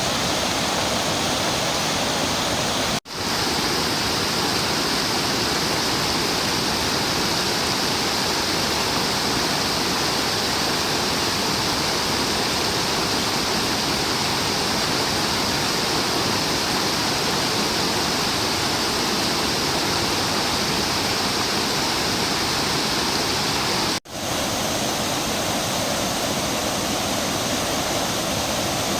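Tat Ton Waterfall, a low, wide cascade over rock, pouring in a steady, dense rush of water. The sound cuts out for an instant twice, about three seconds in and again near the end.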